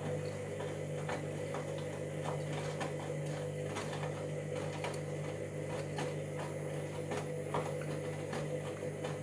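Washing machine drum turning on its motor: a steady electric hum with irregular clicking and ticking from the drum several times a second, in a machine with drum and motor problems.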